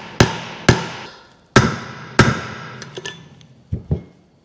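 A hammer strikes a steel bearing-race driver plate, driving a new outer bearing cup into a wheel hub. Four hard, ringing blows come about half a second apart, and a few lighter taps follow near the end as the cup goes home.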